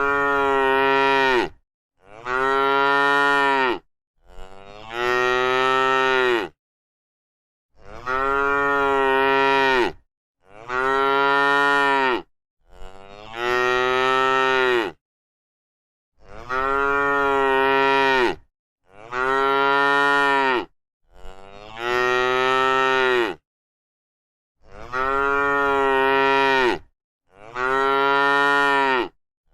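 A cow mooing again and again: about eleven long, steady moos of roughly two seconds each, separated by short gaps of complete silence.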